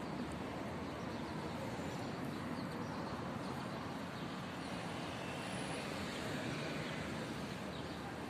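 Steady background hum of distant street traffic.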